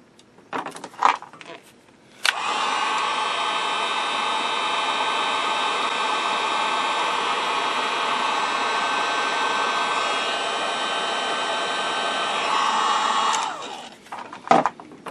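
Handheld electric heat gun blowing hot air: it switches on about two seconds in, runs steadily for about eleven seconds, then switches off and winds down. It is heating the wax that holds the paper capacitors in a Bakelite block. A few handling clicks come before and after it.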